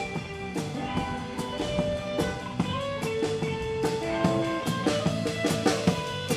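Small live band playing through a PA: drum kit with regular drum and cymbal strikes under held melody notes.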